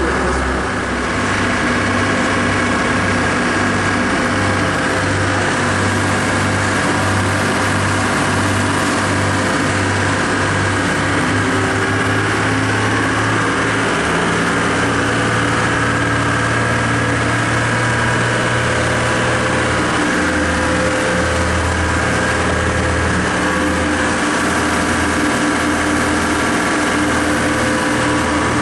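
Engine of a 1990 Bimini 29 sportfisherman running steadily underway, a continuous drone over the rush of water and wind, its pitch shifting slightly a few times.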